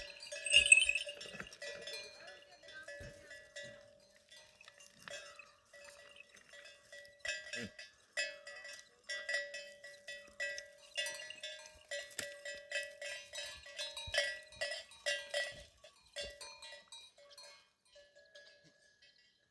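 Livestock bells on a moving flock of sheep and goats, clanking irregularly with a ringing tone, busiest from about 7 to 16 seconds in.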